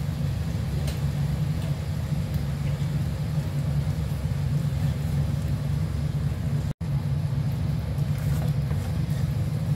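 Steady low rumble of a gas stove burner heating a pan of simmering mung bean stew, with a few faint ticks. The sound cuts out for an instant about two-thirds of the way through.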